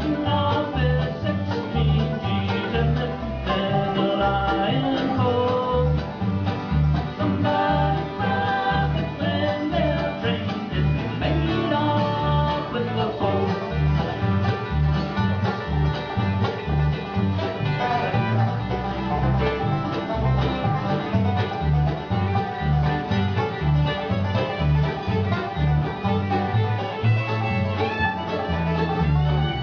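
Live bluegrass band playing an instrumental break: banjo, guitar and mandolin over an upright bass keeping a steady beat, with the fiddle coming forward near the end.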